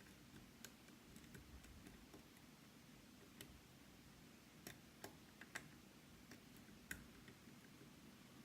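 Faint, irregular metallic clicks of a lock pick working inside a Yale Superior lock cylinder, knocking the sliders into place. The clicks come singly and unevenly, several of them close together about five to seven seconds in.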